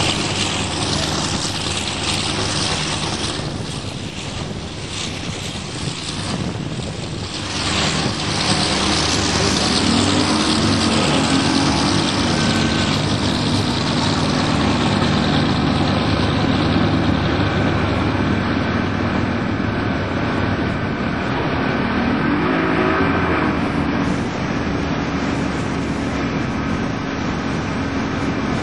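Motorboat engine running under way, with wind and water rushing past the hull; it gets louder about eight seconds in, and its note swells briefly a couple of times.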